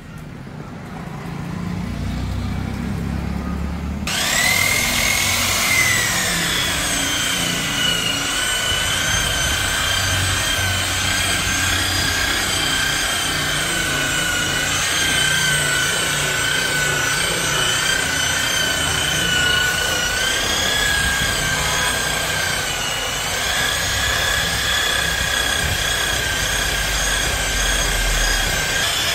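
Electric rotary car polisher buffing rubbing compound into car paint: a low rumble, then about four seconds in the motor spins up and runs with a steady high whine.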